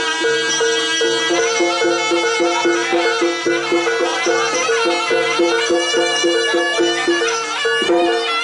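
Live jaranan ensemble music: a reedy, wavering melody held over a quick, steady two-note repeating figure from the gamelan instruments.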